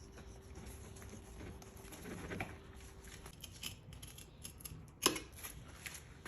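A fillet knife cutting through the thick skin of a rainbow trout, making irregular small snipping clicks, with one sharper click about five seconds in.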